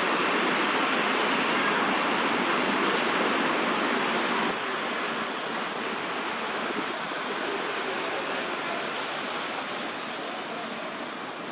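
A steady rushing hiss with no distinct calls or knocks. It steps down in level about four and a half seconds in and fades slightly near the end.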